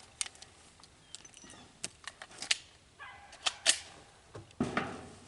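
Handling noise as a 9mm pistol is readied: a handful of sharp clicks spread through, with a short rustle near the end.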